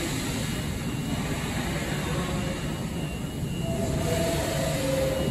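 Subway train rumbling steadily in the station, with a faint whine about four seconds in.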